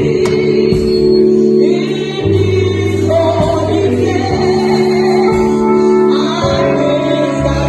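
Gospel music: voices singing together over held chords and a low bass line that moves every second or two.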